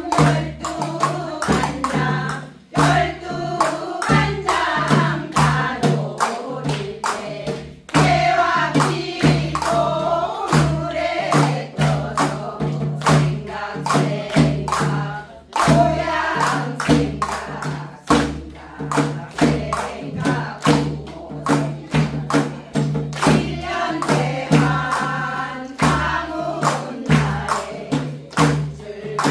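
Group of women singing a Jeju haenyeo (women divers') work song in chorus over a steady struck percussion beat of about two strokes a second, with brief breaks between phrases.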